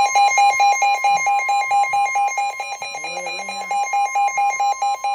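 Weather radio alert alarm sounding for a severe thunderstorm warning: a loud pulsing beep, about four beeps a second, over a steady higher warning tone.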